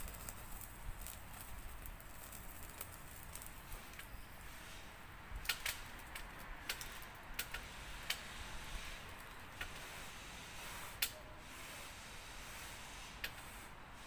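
Wood burning in a small stainless wood-gas camp stove: a soft steady hiss of flame with irregular sharp crackles and pops, most of them coming in a cluster in the middle.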